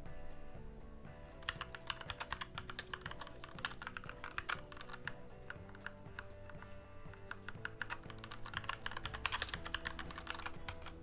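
Typing on a mechanical keyboard fitted with Gateron White (Clear) linear switches: a quick, irregular patter of key presses, starting about a second and a half in, over soft background music.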